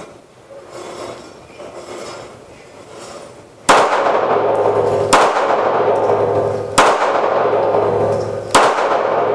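Four pistol shots, the first about three and a half seconds in and then one every one and a half to two seconds, each followed by a long ringing echo. Before them only faint handling sounds as the grip is set.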